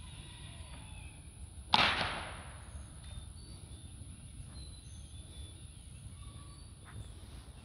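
A single sharp crack about two seconds in, with a noisy tail that fades over about half a second. Faint short high chirps and a steady thin high whine sit behind it.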